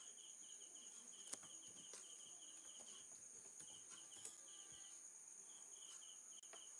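Faint crickets chirping in quick, evenly spaced pulses that come in short runs, over a steady high-pitched whine, with a few soft, sharp clicks.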